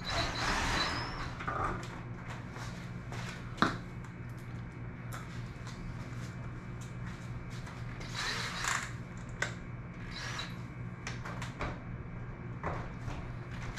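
Cordless drill driving screws through PVC pipe couplers into a metal garage door, in a few short bursts of about a second each. Between them come clicks and knocks from handling the drill and couplers, including one sharp knock, over a steady low hum.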